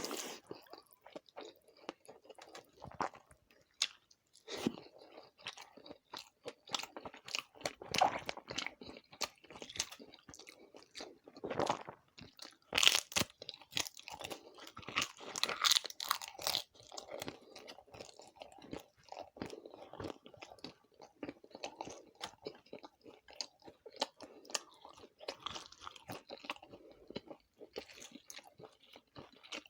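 A person eating close to the microphone, with continual wet chewing and crisp crunching of fried food, loudest for a few seconds about halfway through.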